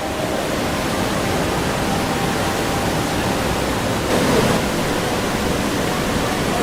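Steady loud rushing of fast-flowing floodwater, swelling briefly about four seconds in.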